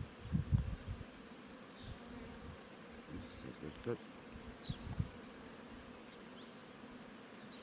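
Honeybees buzzing steadily in a low, even hum, with a few soft low knocks about half a second in and again about five seconds in.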